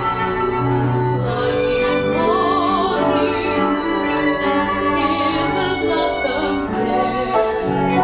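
Live chamber music: a mezzo-soprano singing with vibrato over bowed strings, winds and piano.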